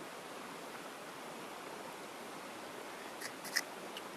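Steady hiss of outdoor ambience, with a few sharp cracks about three seconds in as a piece of cooked crab shell is bitten and broken while eating.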